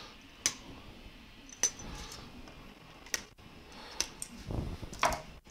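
Flush cutters snipping zip ties off a 3D printer's frame: several sharp, separate clicks over light handling noise of tool and parts. The sound drops out for an instant twice, near the middle and at the end.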